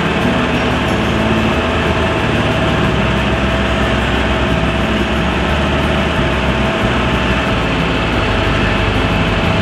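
Tractor engine running steadily as it tows a trailer at low speed, with a constant thin whine above the rumble.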